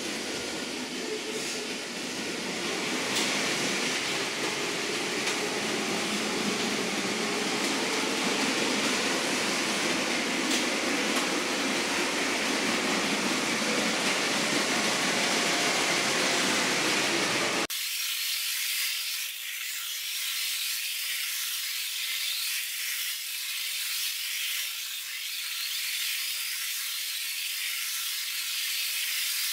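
Lego trains running on plastic track: a steady whirring and rattling from their small electric motors and wheels. About two-thirds of the way through, the sound turns abruptly thinner and higher-pitched as the footage is sped up ten times.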